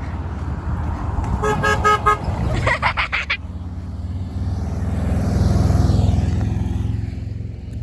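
A car horn beeping in a quick run of about five short toots, followed by a brief louder burst of sound. Then a passing vehicle's engine rises and fades as it goes by.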